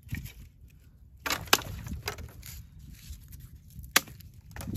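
Dry sticks being handled, rustling and scraping, with two sharp cracks of wood: one about a second and a half in, and a single loud snap about four seconds in.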